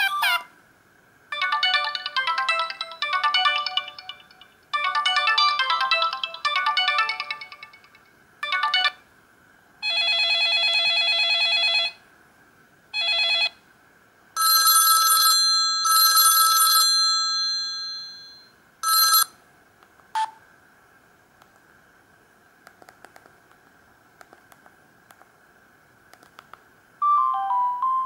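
Samsung GT-C3212 mobile phone's built-in ringtones playing through its small speaker, one short preview after another, each cut off abruptly as the next is selected: a bouncy note-by-note melody in two phrases, a steady electronic ring, and bell-like tones that fade away. Near the end comes a short falling message alert tone.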